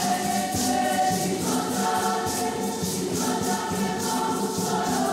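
A choir singing a hymn in long held notes over a steady shaking rattle beat.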